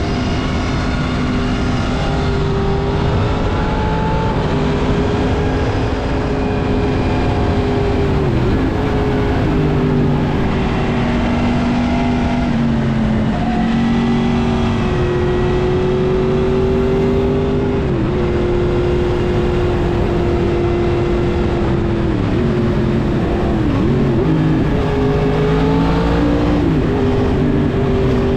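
Yamaha MT-10's crossplane inline-four running through a Mivv full exhaust system on the move. The engine holds a fairly steady pitch and dips sharply and picks back up about five times, as the throttle is rolled off and on or gears are shifted.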